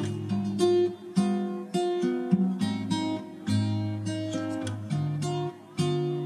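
Background music led by an acoustic guitar, with plucked and strummed chords changing a few times a second.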